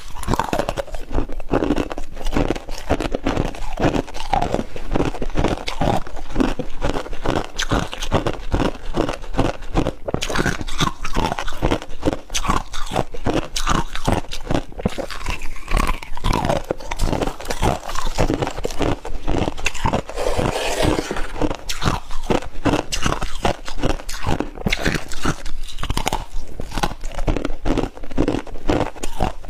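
A person biting and chewing a mouthful of freezer frost, a steady run of close, crisp crunches following one another without a break.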